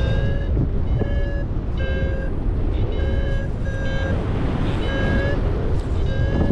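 Paraglider's flight variometer beeping about once a second in short tones of steady pitch, signalling that the glider is climbing in lift, over a steady rumble of wind on the microphone.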